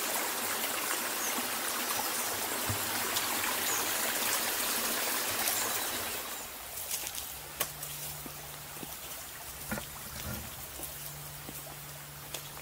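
Shallow stream trickling steadily. About six seconds in the water sound drops away and scattered footsteps sound through grass and leaf litter.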